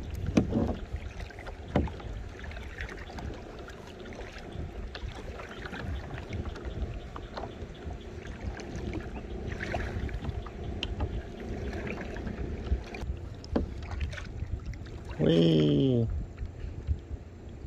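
Kayak being paddled: paddle strokes and splashes with scattered sharp knocks, over a low rumble. About three-quarters of the way through, a loud pitched sound slides down in pitch for under a second.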